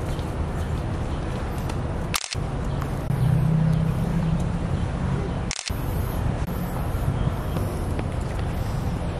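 Steady low rumble of outdoor background noise, louder for a couple of seconds in the middle, broken twice by a brief click and dropout.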